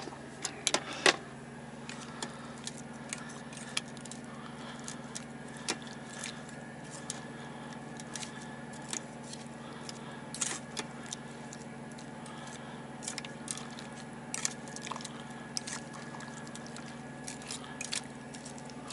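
A metal utensil clinking and scraping against a stainless steel cooker pot as potato chunks and stew are stirred: irregular sharp clicks, several in quick succession in the first second, over a steady low hum.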